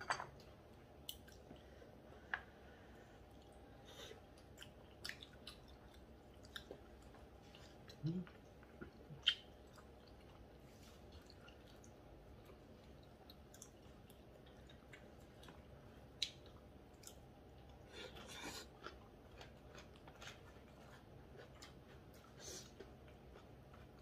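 Quiet eating sounds: chewing, with scattered light clicks and taps of chopsticks against bowls and the pan.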